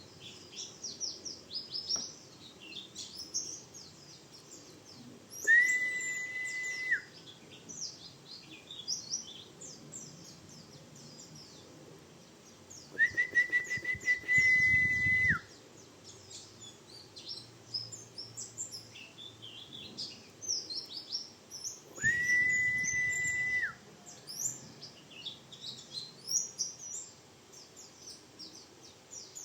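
Pleci bustomi (white-eye) singing a rapid, coarse twittering 'ngriwik' song of quick high chirps and trills, rolling on with short breaks. Three times a loud, steady whistle-like tone is held for about two seconds, louder than the song.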